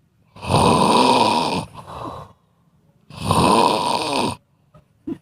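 Loud snoring: two long snores about two and a half seconds apart, each followed by a shorter, quieter breath.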